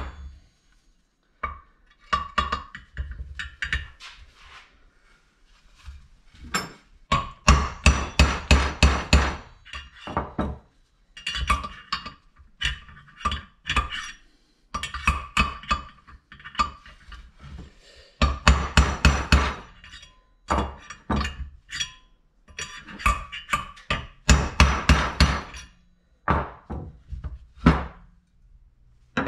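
Hammer blows on a drift punch driving an old wheel bearing out of a Yamaha Virago 1000's cast aluminum wheel hub. The blows come in quick runs of about four or five a second with short pauses between, each one ringing. The punch is tapping around to catch the lip of the bearing's inner race.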